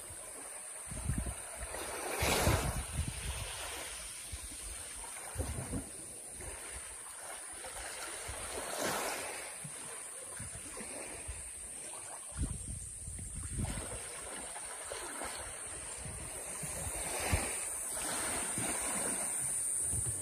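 Small waves washing in over a sandy shore, swelling and falling back every several seconds, with wind buffeting the microphone.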